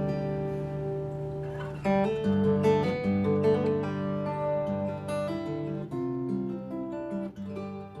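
Acoustic guitar music: plucked notes and chords ringing over low bass notes, growing gradually quieter toward the end.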